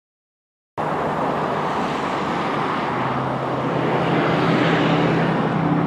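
Road traffic noise that cuts in abruptly about a second in: a steady rush of passing vehicles with a low, even engine hum, growing slightly louder toward the middle.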